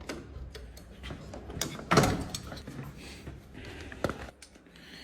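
Clicks and knocks of handling, with a sharp loud knock about two seconds in and another about four seconds in.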